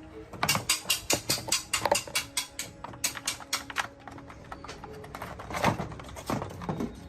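A quick run of sharp taps or knocks, about five or six a second for some three seconds, then a few scattered ones near the end, over soft background music.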